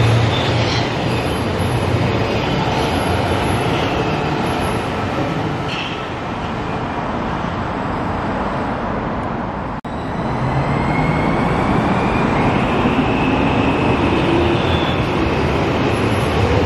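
Helsinki metro trains: one train's rolling noise slowly fades over the first half. About ten seconds in, a sudden cut brings a second metro train approaching and pulling into the station, with a gliding electric motor whine over the rumble of its wheels.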